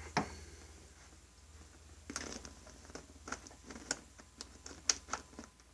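Light clicks and taps of hands working a small home-alarm prototype: one sharp click just after the start, then about a dozen irregular clicks over the next three seconds.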